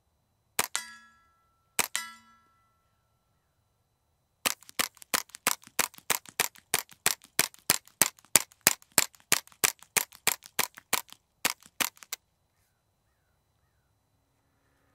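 Suppressed .22 rimfire semi-automatic rifle firing through an AB Suppressor Little Bird: two single shots about a second apart, each followed by a short ring, then a rapid string of about thirty shots at roughly four a second that stops abruptly.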